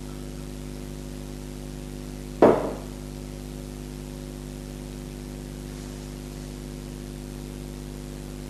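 A steady electrical hum, with a single sharp knock about two and a half seconds in, like a hard object set down on a kitchen worktop.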